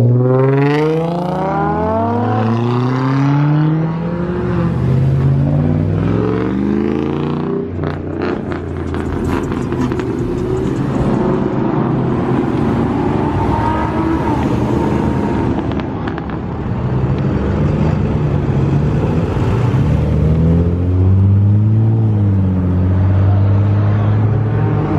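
A car engine revving hard and accelerating, its pitch climbing in steep repeated sweeps in the first few seconds. A dense, rougher stretch of engine noise follows in the middle, and the engine revs up and down again near the end.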